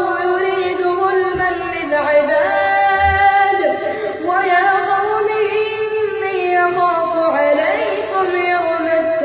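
A boy reciting the Quran in melodic tajweed style, his high voice drawn out in long held notes that waver and glide between pitches, in phrases of a few seconds each.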